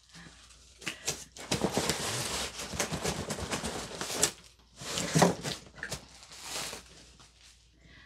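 Cardboard rustling and scraping as a boxed kit is slid out of a cardboard shipping box, with a few sharp knocks and taps from handling the boxes.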